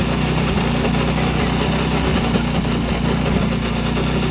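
Portable fire pump's engine idling steadily.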